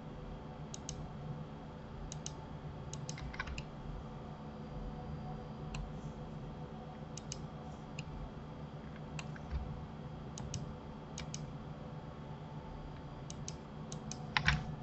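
Scattered clicks of a computer mouse and keyboard, many in quick pairs, over a low steady hum.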